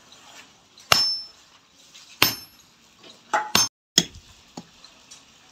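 Hammer striking a hand-held chisel to cut steel wire against a metal block: about five sharp metallic clinks, roughly one a second, the first ringing briefly.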